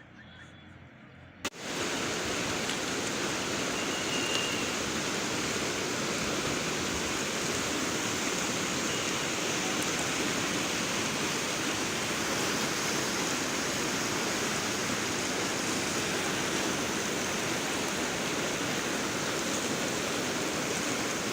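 Floodwater of a swollen river rushing past in a steady, loud roar of water. It starts abruptly about a second and a half in, after a brief quieter moment.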